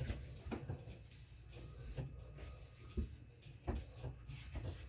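Irregular light knocks, clicks and rubbing from a refrigerator's interior being wiped clean.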